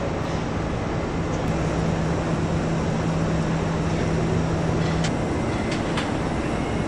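Assembly-line machinery noise: a constant rushing background with a steady machine hum that stops about five seconds in, and a few sharp clicks near the end.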